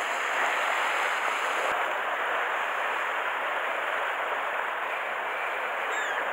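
Steady rush of sea surf breaking and washing over shore rocks.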